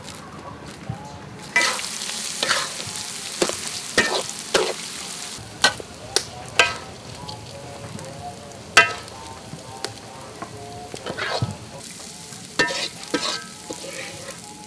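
Rice frying and sizzling in a metal wok while a metal ladle stirs and scoops it, with repeated sharp clanks of the ladle against the pan. The loudest clank comes about nine seconds in. The sizzle starts about a second and a half in.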